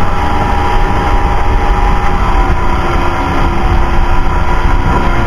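Evinrude E-TEC 130 two-stroke outboard motor running steadily at speed under load while towing, over the rush of the churning wake and wind.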